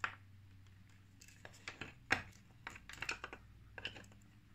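Small plastic clicks and taps as a USB charging cable and its clip are handled and fitted onto a fitness band: a scattering of short sharp clicks, the loudest about two seconds in and a cluster around three seconds.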